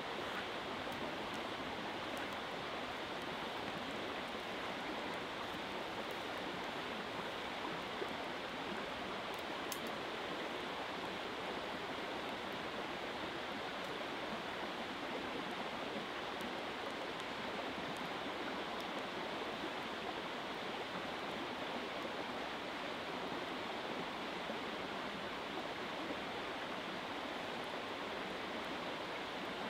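A small river flowing steadily, with a few faint crackles from a campfire.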